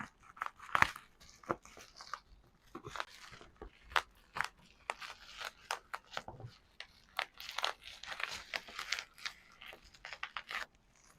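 Thick packaging wrap being pulled, torn and crinkled by hand: an irregular run of crackles, crunches and rustles.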